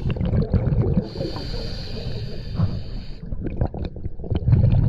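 Scuba diver breathing through a regulator underwater: a rumbling bubbly exhale at the start, a steady hissing inhale from about one to three seconds in, then another bubbling exhale near the end, with scattered small clicks and knocks between.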